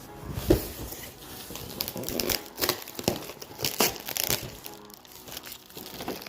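Packaging crinkling and rustling as it is handled and unwrapped, likely the wrapping on newly arrived sliding-glass tracks for a reptile cage. Irregular crackles and sharp taps, with a loud knock about half a second in and a busy run of crinkles between two and four and a half seconds.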